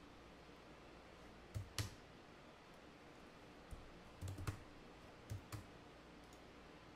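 Faint computer keyboard keystrokes and mouse clicks, a few at a time in three short clusters, over a quiet room hiss.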